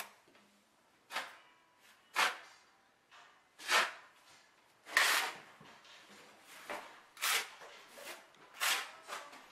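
Steel trowels scraping and spreading stiff thinset mortar: about seven short scrapes, irregularly spaced.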